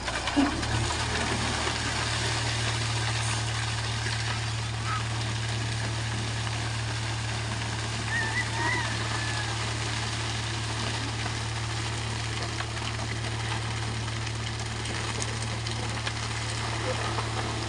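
Concrete mixer truck's diesel engine running steadily, turning the drum while wet concrete slides down the discharge chute. The engine hum steps up about half a second in and then holds, over a constant rushing noise.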